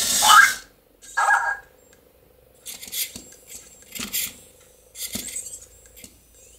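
Anki Cozmo toy robot carrying a cube: a motor whir that rises in pitch and stops about half a second in, a short electronic chirp just after a second, then light plastic clicks and rattles in several pairs over a faint steady hum as it drives.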